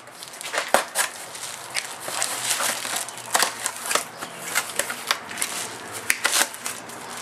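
Cardboard packaging and plastic wrap being torn and pulled off a new shovel blade: crinkling and rustling with a string of sharp crackles and snaps.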